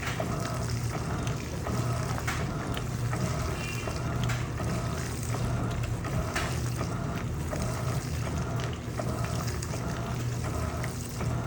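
Electrolux LPE16 washing machine running with a double duvet inside: a steady motor hum under a rhythmic water swish that repeats about every two-thirds of a second.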